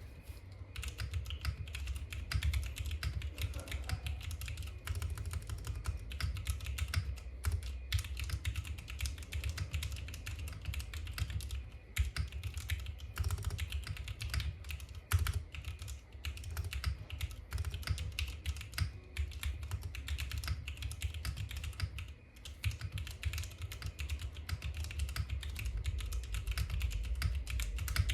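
QK60 mechanical keyboard with lubed Cherry MX2A Brown tactile switches, carbon-fibre plate and PBT dye-sub keycaps, its keys pressed in quick succession: a dense, continuous run of key clicks with a couple of brief pauses.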